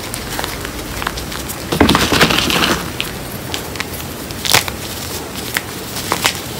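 Reformed gym chalk, calcium and magnesium chalk mixed with cornstarch, squeezed and crumbled by hand in loose powder: dry crackling and crunching of breaking chunks. A longer crunching squeeze comes about two seconds in, and a single sharp crack about four and a half seconds in.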